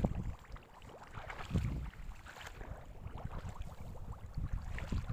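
Shallow, muddy rice-paddy water splashing and sloshing irregularly as someone moves through it.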